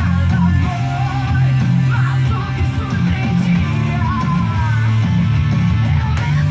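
Rock music with electric guitars and a steady bass line, playing continuously.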